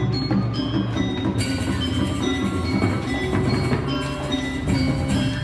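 Background pop music, an instrumental passage with a steady beat.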